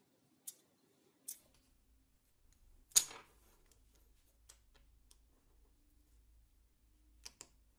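Short sharp clicks and taps of small steel tube pieces and wooden blocks being handled and set down on a wooden workbench, the loudest about three seconds in and a quick pair near the end.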